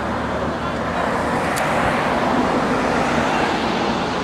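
A car driving past on the street, its tyre and engine noise swelling to a peak a little over halfway through and then fading.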